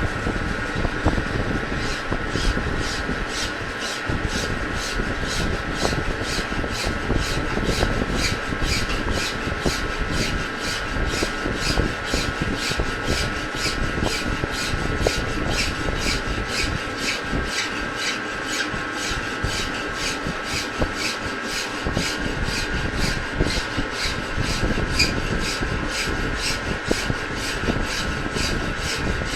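Metal lathe turning a road roller's rear axle: the machine runs steadily with a high whine, and a rhythmic rasping scrape repeats about twice a second, setting in about two seconds in.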